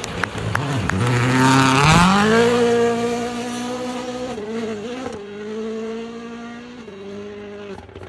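Hyundai i20 N Rally1 car's turbocharged four-cylinder engine accelerating hard on gravel, with a few sharp cracks near the start. The revs climb steeply about two seconds in, then hold with several short dips as the car pulls away and the sound fades.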